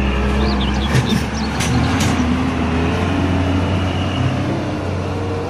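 Heavy tanker truck's diesel engine running steadily at low speed as it drives through mud, with a few knocks from the truck early on.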